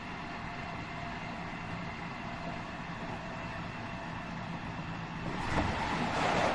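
Interior running sound of a JR West 207 series 1000 subseries electric train: steady rolling noise with a few fixed tones from the motor and its Toshiba GTO inverter. About five seconds in the noise swells louder, with a single knock.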